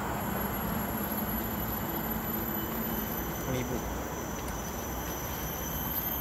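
Steady rumbling noise from wind and handling on the microphone of a camera carried at a walk along a forest trail, with a faint steady high-pitched insect drone above it.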